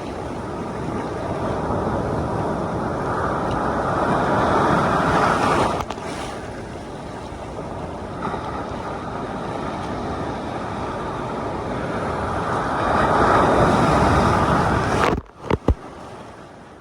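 Large ocean waves breaking and rushing around, heard through a phone in a waterproof case. The rush swells twice, then cuts out suddenly near the end, followed by a couple of sharp knocks.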